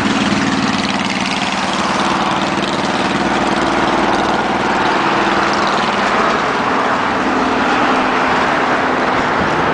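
Busy highway traffic: a steady wash of passing vehicles, with the low hum of a heavy engine in the first half and again near the end.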